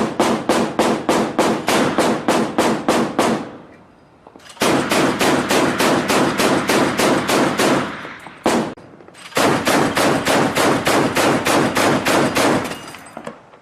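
Mk 38 25mm gun's M242 Bushmaster chain gun firing on automatic: three long bursts of evenly spaced shots at about four to five a second, each lasting three to four seconds, with a single shot between the second and third bursts.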